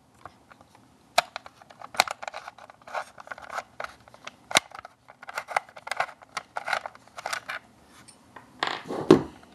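Allen wrench working the cheek-rest screws out of an L96 airsoft sniper rifle's stock: quick clicks, ticks and scrapes of small metal parts, with a louder knock near the end.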